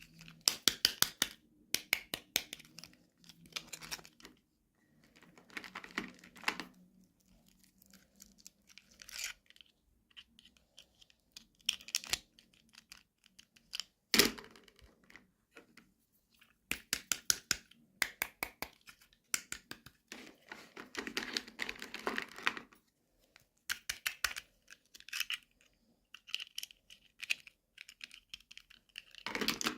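Toy packaging being handled and torn open by hand: bursts of tearing, crinkling and small clicks, each lasting a second or two, with short pauses between.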